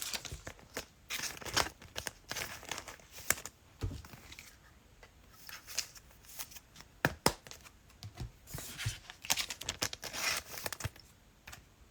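Trading-card pack wrappers crinkling and tearing as packs are opened and cards handled, in scattered short bursts with quiet gaps between.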